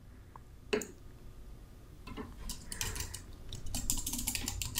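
Faint clicking of computer keyboard keys and a mouse, a quick irregular run of clicks starting about two seconds in, over a low steady hum. A single short, sharper click comes just under a second in.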